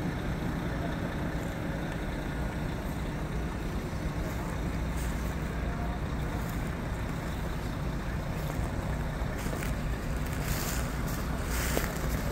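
Heavy truck engine idling, a steady low rumble, with wind buffeting the microphone for the last couple of seconds.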